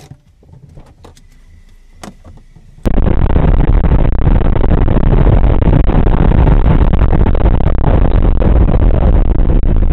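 Car driving at highway speed, its engine, tyre and wind noise picked up loud and dense by a dashcam. It starts abruptly about three seconds in, after a few faint clicks.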